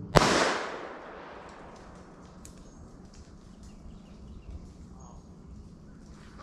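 A single .22 rifle shot just after the start: a sharp, loud crack whose echo dies away over about a second.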